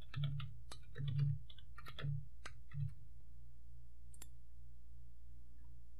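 Computer keyboard keys clicking as a short entry is typed, about ten keystrokes in the first three seconds. A single mouse click follows about four seconds in, over a faint steady low hum.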